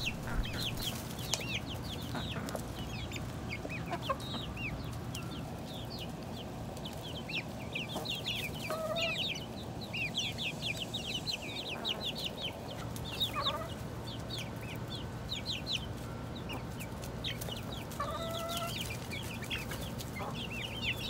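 A small flock of hens and young chicks feeding, the chicks peeping in quick, short, high chirps throughout, with a few lower chicken calls about a third, halfway and most of the way through.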